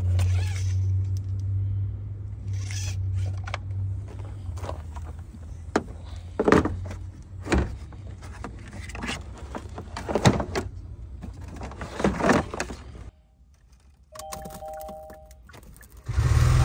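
Hands working under the hood of a 2020 Kia Soul: clicks and clunks as the oil dipstick and a jump starter's clamps are handled, with several sharp knocks. Near the end a short two-tone electronic beep sounds, then a loud steady noise starts.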